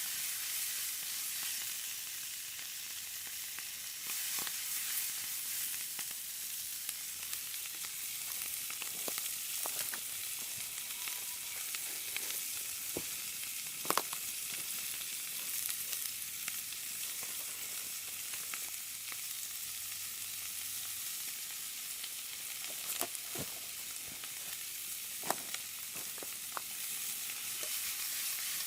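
Yakisoba frying in a cast-iron skillet, a steady sizzle with a few sharp clicks scattered through it, the loudest about halfway through.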